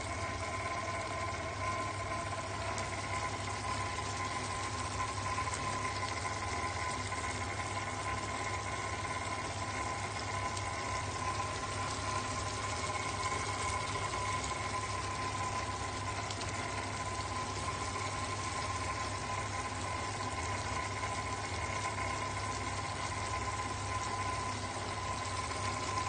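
Udon noodles and vegetables simmering in broth in a frying pan, a steady hiss, over a steady machine hum.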